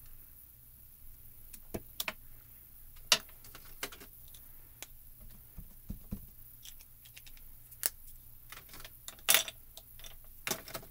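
Scattered light clicks and taps of rubber-stamping tools being handled: a clear acrylic stamping block pressed onto the card and set down, and ink pads picked up and put back. A sharper knock comes about three seconds in, and a quick cluster of taps a little before the end.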